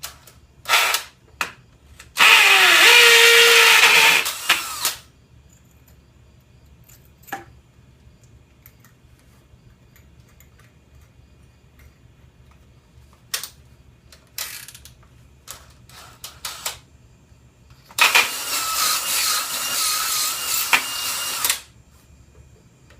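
Power drill run twice for a few seconds each, about two seconds in and again near the end, to enlarge a screw hole. There are a few short clicks and knocks between the runs.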